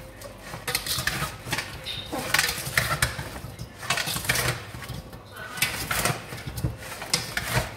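Metal tongs clinking and scraping against a stainless-steel bowl, with irregular clatters, as pieces of fish are turned and tossed in seasoning powder.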